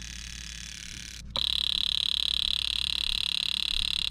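Datsun 280ZX fuel injector buzzing as a cleaning and testing tool pulses it rapidly, spraying cleaner through it. It stops briefly about a second in, then starts again louder, with a fast, even flutter.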